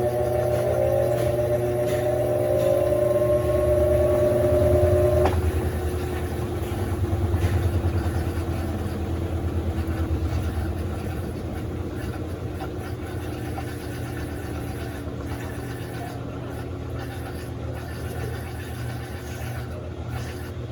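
Electrolux LAC16 top-load washing machine running: a motor whine of several tones rising slowly in pitch cuts off sharply about five seconds in, leaving a low hum that slowly fades.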